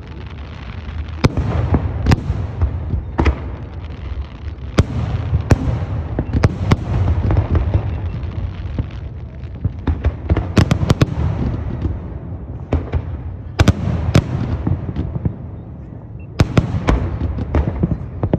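Aerial fireworks bursting one after another: sharp bangs, each trailing off in a long echo, over a continuous low rumble. Quick runs of several bangs come about ten seconds in and again near the end.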